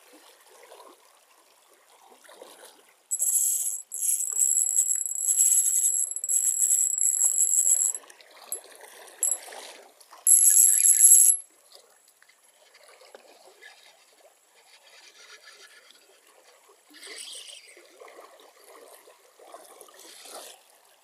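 Ajiking Wahoo Mini spinning reel's drag buzzing in several high-pitched spurts as a hooked sebarau (hampala barb) pulls line. It buzzes off and on for about five seconds, then once more briefly, with the fish splashing at the surface in the quieter stretches.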